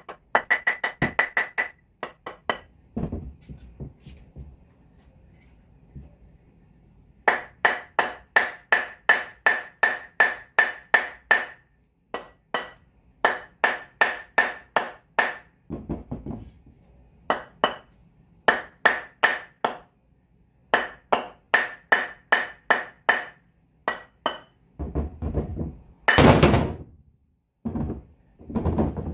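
Rapid hammer blows on a steel axe head, about three a second in runs of several seconds, each with a metallic ring, knocking the head off its old handle; duller thuds come between the runs, and one louder clatter near the end.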